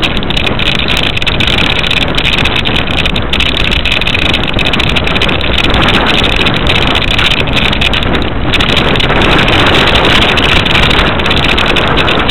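Loud, steady rush of wind and road noise from a Quest velomobile riding along a snow-covered road, with wind buffeting the microphone mounted on the outside of the shell.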